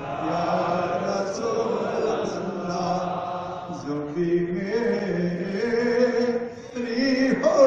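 Men's voices chanting together in long, drawn-out notes that slowly rise and fall.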